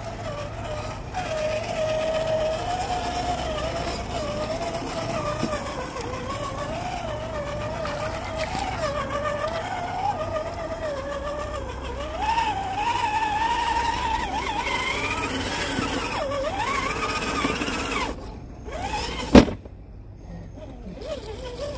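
Electric motor and gearbox of a 1/10-scale RC rock crawler whining as it crawls over rocks, the pitch wavering and climbing with the throttle. The whine stops near the end, and a single sharp knock follows.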